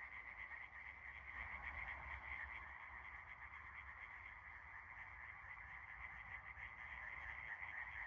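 A dense chorus of many frogs croaking at once without a break, the calls pulsing rapidly.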